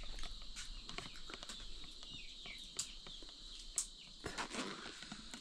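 Faint rural outdoor ambience: a steady high insect drone, with a few short bird chirps and a couple of sharp clicks.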